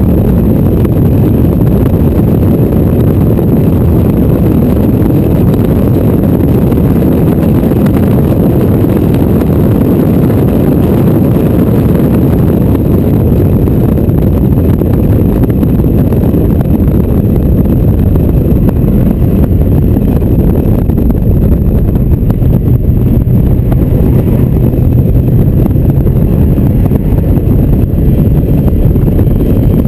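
Four-cylinder engine of an open-topped Mazda MX-5 running hard at speed, mixed with heavy wind buffeting on the microphone. The sound is loud and steady, with the engine note holding level for a few seconds near the end.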